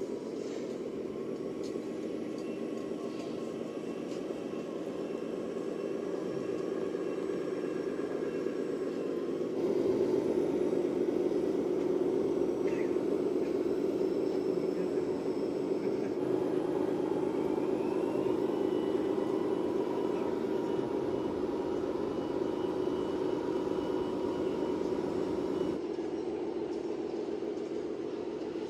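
Radio-controlled model construction vehicle running, its sound module playing a steady diesel engine sound. The sound changes abruptly twice, getting louder about a third of the way in.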